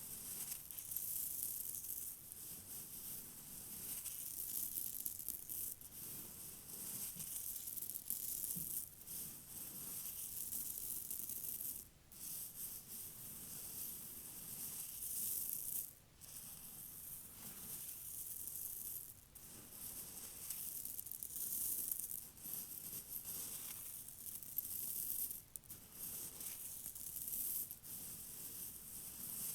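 Compact vacuum cleaner picking up river rocks, the stones rattling and clattering through the nozzle and hose over the hiss of the suction, with two brief dips partway through.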